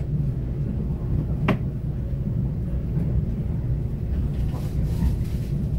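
Steady low rumble of a moving passenger train heard from inside the carriage, with one sharp click about a second and a half in.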